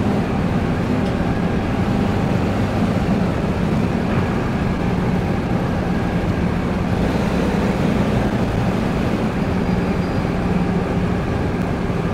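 Steady low engine drone inside a ferry's vehicle deck, holding at one level with no sudden sounds.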